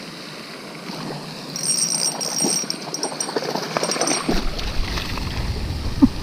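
Handheld rustling and clicking from handling fishing gear, then wind buffeting the microphone from about four seconds in. A dog barks once right at the end.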